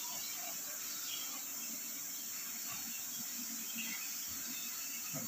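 Quiet background: a faint, steady high hiss with no distinct event.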